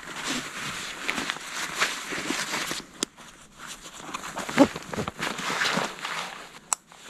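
Nylon backpack and its dry bag being handled: the drawstring cinched, the pack closed and shouldered, with irregular fabric rustling and a couple of sharp clicks.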